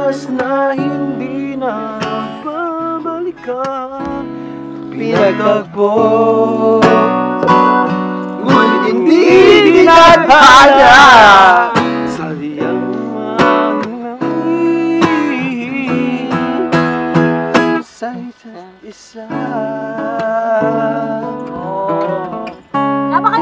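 Acoustic guitar being played, picking out chords and melody notes, with a voice singing along; the singing is loudest about ten to twelve seconds in, its pitch wavering.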